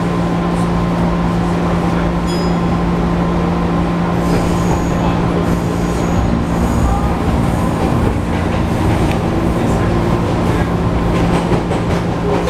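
Interior running noise of a JR 205 series 1000-subseries electric commuter train: a steady hum from its DC traction motors over the rumble of wheels on rail. A faint high-pitched wheel squeal comes in from about four to seven seconds in.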